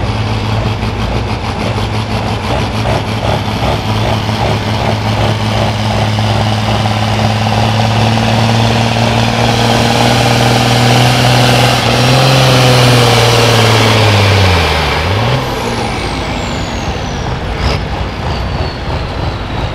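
A John Deere farm tractor's diesel engine under full load, pulling a weight-transfer sled. It runs with a steady, heavy drone, rises slightly as the pull peaks, and then drops sharply in pitch about 15 seconds in as the engine is throttled back at the end of the pull. Over the last few seconds, a high whine falls away.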